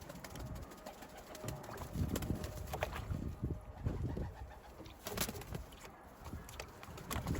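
Racing pigeons cooing: low, repeated swelling coos, with a few sharp taps in between.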